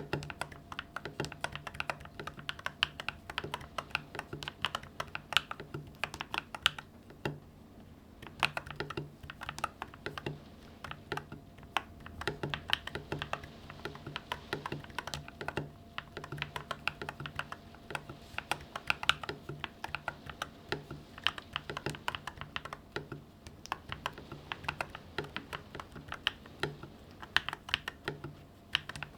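Typing on an Epomaker TH80 Pro mechanical keyboard fitted with Akko V3 Cream Yellow Pro switches and Akko keycaps: a quick, uneven run of key presses with a couple of short pauses.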